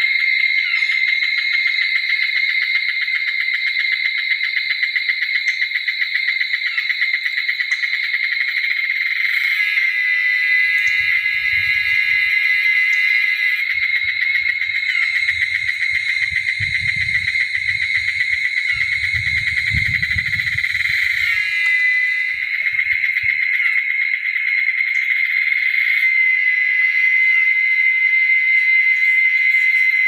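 Loud, steady, shrill insect chorus, a dense drone that changes texture a few times as individual insects join and drop out. A faint low rumble comes and goes in the middle.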